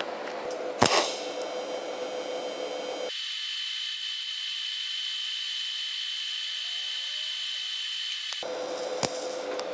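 TIG welding arc on steel, a steady hiss with a thin high tone, as a square steel tube is fused to a thick steel base plate with filler rod. A sharp click about a second in, and another near the end.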